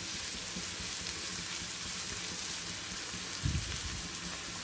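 Chopped onion, capsicum and beans sizzling steadily in hot oil in a wide pan on high flame, being stir-fried only halfway so they stay crunchy. A soft low thump sounds once about three and a half seconds in.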